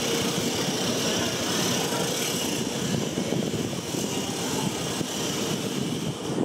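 Steady city outdoor background: a continuous hum of traffic with a high, even hiss over it.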